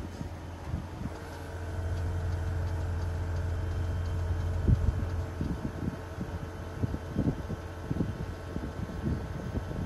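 Air-suspension compressor of a 2008 Range Rover Sport Supercharged (L320) running. It starts about a second in as a steady hum with a thin whine over it, on top of a low rumble. From about halfway there are irregular low thumps.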